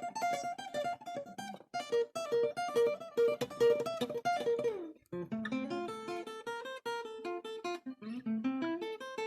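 Acoustic guitar played solo in an instrumental break of a song: a picked melody over chords, with a note sliding down and a short pause about halfway through before the playing goes on.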